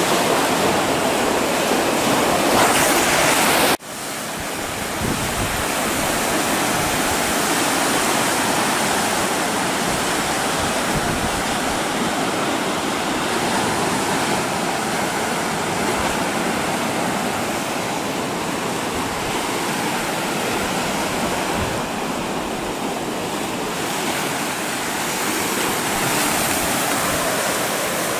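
Sea of Azov surf breaking on the shore and washing around rocks: a steady rushing of waves, broken by a sudden brief drop about four seconds in.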